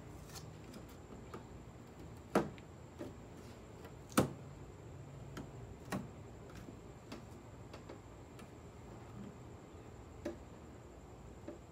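Irregular small clicks and taps from hands fitting wing-stabilizer hardware to a car's rear wing uprights, with two sharper knocks about two and four seconds in.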